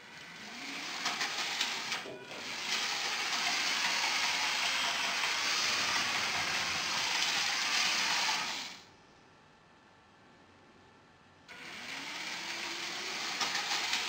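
Lego 9V train motor running, with the plastic wheels whirring on plastic track; it spins up with a rising hum in the first second or two. The whirr cuts off about nine seconds in and starts again with another rising hum about two and a half seconds later.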